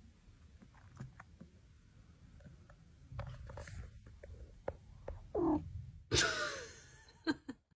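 Domestic cat purring softly, a low rumble, then two short falling meows about five and six seconds in.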